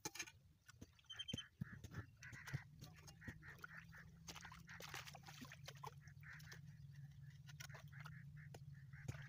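Faint squelching, sloshing and scraping as a hoe works mud and water in a shallow irrigation channel: many short wet splashes and knocks. A low steady hum runs underneath from about two seconds in.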